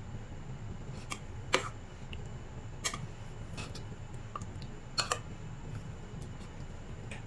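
Light clicks and taps of a steel ladle against a steel pan and plastic kulfi moulds while the mixture is ladled in: a scattered handful of sharp ticks, about one a second, the loudest about one and a half seconds in.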